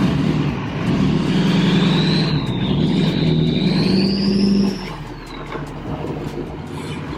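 A diesel pickup truck's engine revving for about five seconds, with a high turbo whistle that rises and then falls away. The sound drops off sharply a little before the end.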